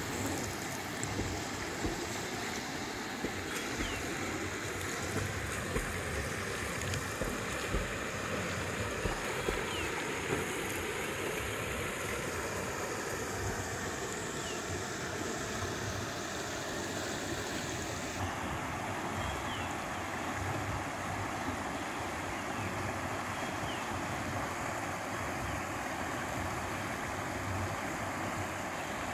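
Floodwater rushing in a continuous flow over a submerged low road bridge, with gusts of wind rumbling on the microphone.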